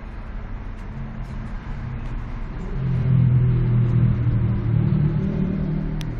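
A motor vehicle engine running, its low hum growing louder about three seconds in and holding there, with a single sharp click near the end.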